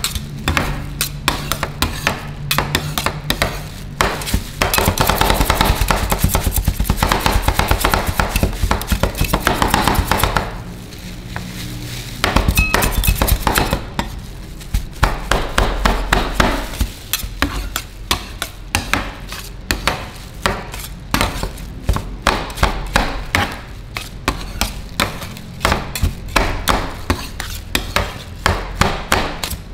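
Two steel spatulas rapidly chopping and tapping on a frozen steel cold plate, breaking up and mixing ice cream with chocolate pieces. Between about five and ten seconds in, the strokes run together into a dense stretch.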